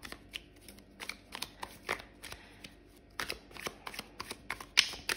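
A deck of tarot cards being shuffled by hand: an irregular run of short card flicks and slaps, with a louder slap near the end.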